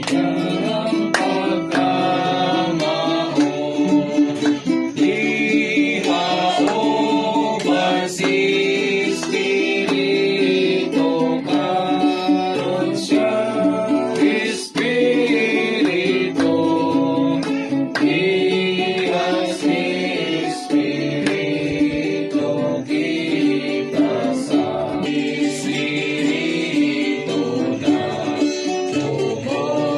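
A song sung by several voices over strummed guitar, with a steady beat.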